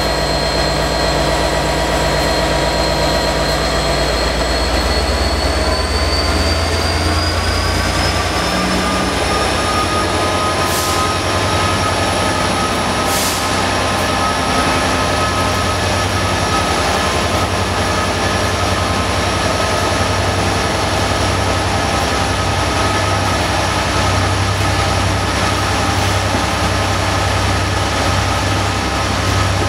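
A diesel multiple-unit train moves off alongside, its engine and transmission tones rising in pitch as it gathers speed and then holding steady. Under it runs the low, steady throb of an idling diesel locomotive close by. Two sharp clicks come a couple of seconds apart near the middle.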